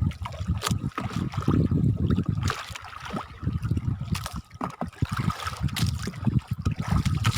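Choppy waves slapping and lapping against the hull of a small boat, with wind buffeting the microphone in uneven gusts and scattered knocks.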